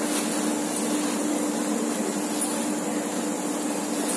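Steady drone of industrial machinery at a big-bag filling station, an even hiss with a constant low hum under it.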